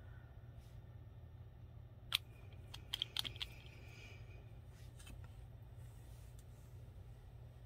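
Small sharp clicks of a gel polish bottle and its brush cap being handled: one click about two seconds in, then a quick run of clicks a second later as the brush goes back into the bottle. A steady low hum runs underneath.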